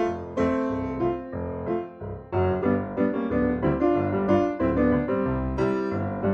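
Background piano music, a melody of separately struck notes over a bass line.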